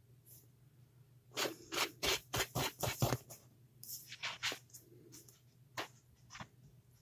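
Scratchy clicks and scrapes of a needle-point sculpting tool and fingertips working a polymer clay pendant in its metal bezel cup: a quick run of about half a dozen, then a few scattered ones.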